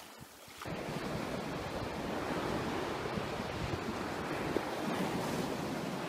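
Strong wind rumbling on the microphone over surf on a rocky shore. It comes in abruptly about half a second in, after a brief lull, and then runs as a steady rushing noise.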